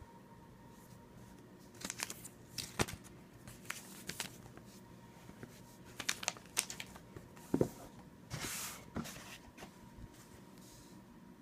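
Unboxing handling noises from the watch's packaging: scattered clicks and taps, with a brief rustle about eight seconds in.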